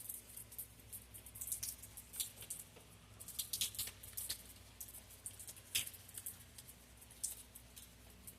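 Rain dripping and pattering: irregular sharp ticks of drops hitting a hard surface, several a second, over a faint low steady hum.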